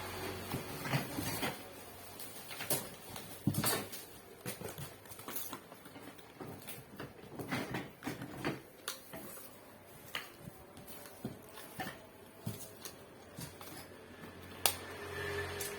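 Irregular knocks, taps and handling noises, with faint rustling between them, as a plastic chair and its packaging are handled during unboxing.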